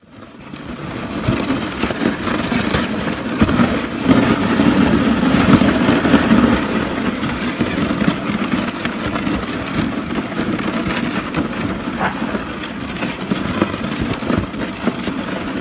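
Dog sled running over snow: a steady scraping rumble from the runners, with the sled rattling and giving occasional sharp knocks.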